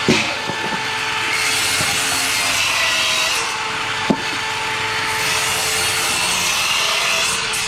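Saw cutting through wooden floor joists, a steady continuous cutting noise with a sharp knock at the start and another about four seconds in.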